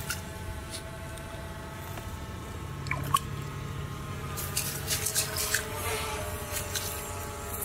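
Water dripping and squelching as a triangular bamboo-framed scoop net is pushed and lifted through shallow, muddy pond water, with a few small splashy clicks. A faint steady hum runs underneath.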